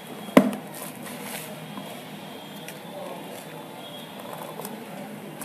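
Hands handling a shrink-wrapped smartphone box, picking at the plastic film. A sharp knock comes about half a second in, followed by faint scratching and small clicks.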